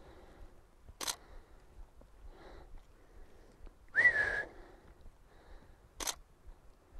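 A short whistle about four seconds in: one clear note that slides up and then holds for about half a second, the loudest sound here. Around it come single camera shutter clicks, one about a second in and one about six seconds in.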